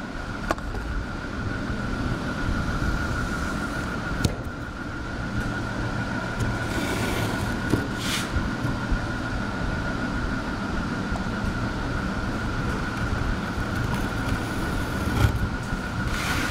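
A steady low mechanical rumble with a constant high whine, like a motor running, with a few light clicks.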